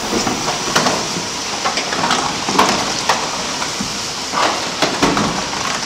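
Mechanical noise: a steady hiss with irregular clanks and knocks, about seven of them spread through, fading only after the end.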